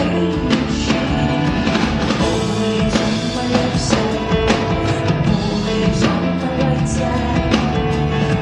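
Live band music: a drum kit keeping a steady beat, about two hits a second, under sustained keyboard and bass notes.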